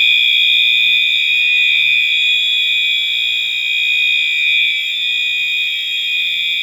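Fire alarm sounder sounding one continuous, high-pitched electronic tone, set off by activating the system's 2400 device in a test.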